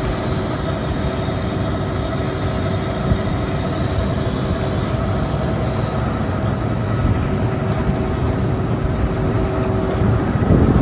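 John Deere 9570 STS combine's diesel engine running steadily: a low rumble with a steady hum, mixed with wind on the microphone. Near the end the hum drops away and a louder rumble rises briefly.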